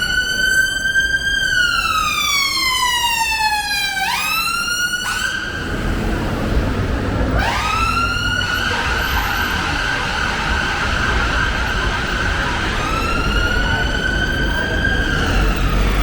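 Emergency vehicle siren wailing. Its pitch rises quickly, falls slowly in long sweeps, and is held high for several seconds in the middle, over a low rumble of traffic.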